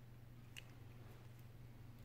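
Near silence over a steady low hum, with one light click about half a second in and two fainter ticks after it, from small parts of an iPhone 6s display assembly being handled with a screwdriver.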